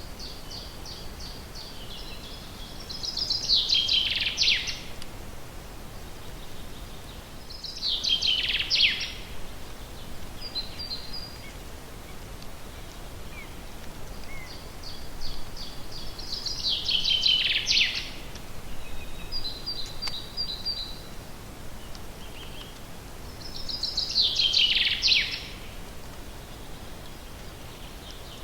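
A songbird singing in a forest: four song phrases, roughly every seven seconds, each a quick run of notes falling in pitch. Softer high chirps come between the phrases, over a steady background noise.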